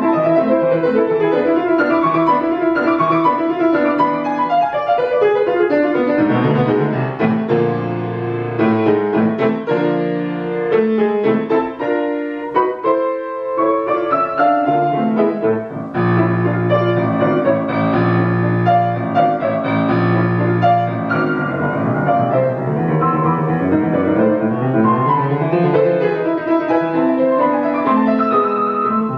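Solo grand piano playing classical music: fast running passages, a brief thinner stretch about halfway, then heavy repeated chords low in the bass.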